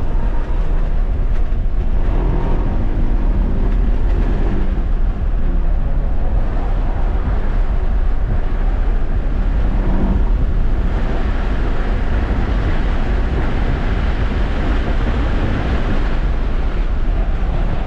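Tesla Model 3 at track speed, heard inside the cabin: a steady low road rumble and wind noise. The hiss grows louder from about eleven seconds in as the car accelerates hard down a straight.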